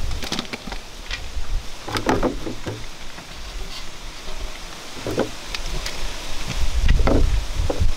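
Clear plastic bag crinkling and rustling as peeled santol fruits are handled and placed into it, with a few soft thuds of fruit settling in the bag and a low rumble that grows near the end.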